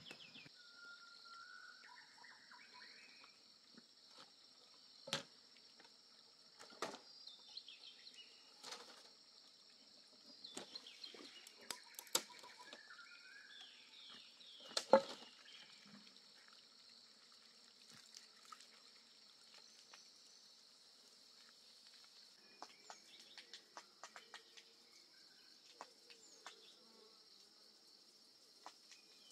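Steady high-pitched insect drone with scattered short bird chirps, broken by a few sharp knocks and taps, the loudest about halfway through.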